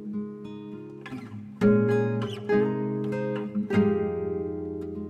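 Background music: an acoustic guitar instrumental, with picked notes and chords ringing on and fresh chords struck about a second and a half in, near the middle and again a little later.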